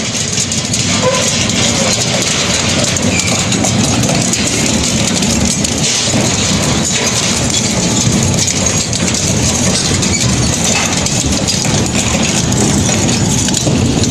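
Hammer crusher running under load, a loud continuous clatter of many rapid impacts and grinding as material is crushed.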